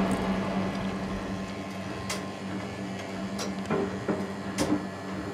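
Quiet designed room ambience: a steady low electrical hum under a faint hiss, with three sharp ticks or clicks spaced a little over a second apart from about two seconds in.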